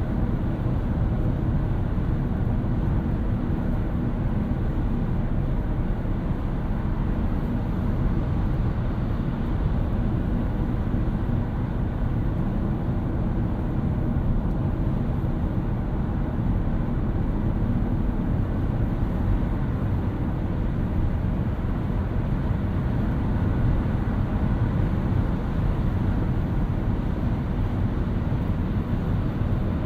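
A 2018 Toyota Auris Touring Sports 1.8 Hybrid on the move: a steady low rumble of road and tyre noise that holds an even level throughout.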